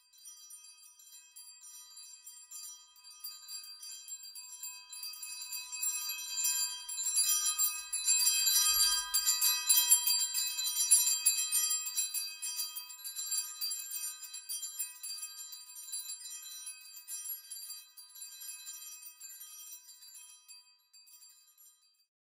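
Sleigh bells jingling continuously as they pass by. They grow from faint to loudest about eight to eleven seconds in, then fade away and stop shortly before the end.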